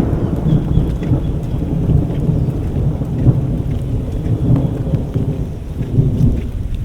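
Thunder rumbling over rain, the deep rumble swelling and ebbing and dying away near the end.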